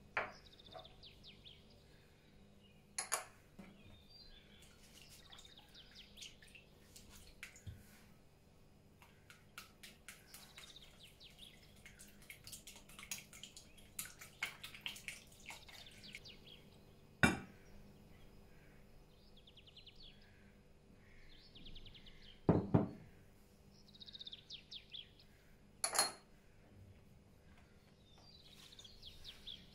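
A spatula and then a small whisk stir and scrape in a glass mixing bowl, with a few sharp clinks and knocks of utensils and containers on the glass and the counter. Birds chirp in the background throughout.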